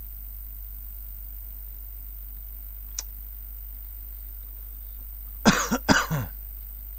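A man coughs twice in quick succession, short and harsh, about five and a half seconds in. A single faint click comes a few seconds before.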